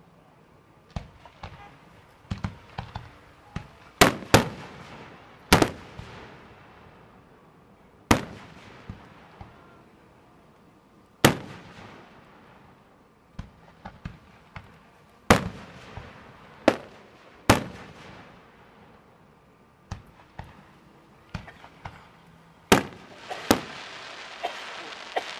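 Aerial firework shells bursting: about ten sharp booms at uneven intervals, each trailing off in a short echo, with smaller pops between them. Near the end a denser hissing crackle builds.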